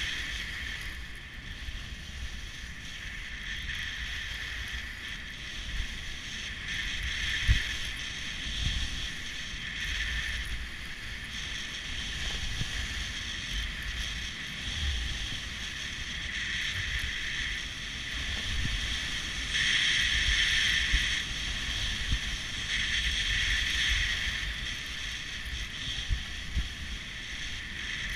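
Skis sliding and scraping over groomed snow, the hiss swelling and fading every few seconds, over a low rumble of wind on the microphone. One sharp thump about seven and a half seconds in.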